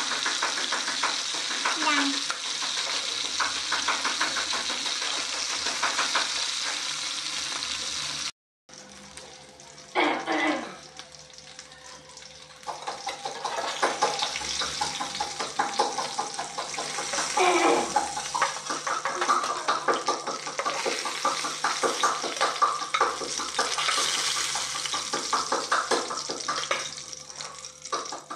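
Fish steaks frying in hot oil in a wok, sizzling steadily, with a spatula scraping and turning them. There is an abrupt break about eight seconds in, and the sizzle is quieter for a few seconds before it and the scraping come back at full level.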